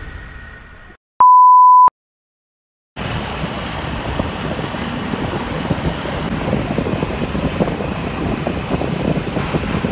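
A single steady electronic beep, about two-thirds of a second long, set between stretches of dead silence. From about three seconds in, the steady wind and engine noise of riding on a motor scooter among other scooters.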